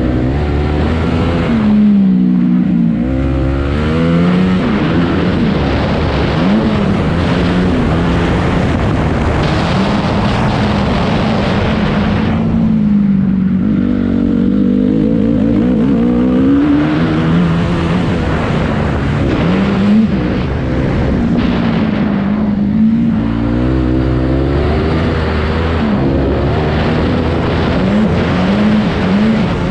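Honda CRF250R motocross bike's single-cylinder four-stroke engine ridden hard, its note climbing and falling as the throttle is worked through the gears. Three times, about 2, 12 and 22 seconds in, the engine drops off throttle and then climbs again.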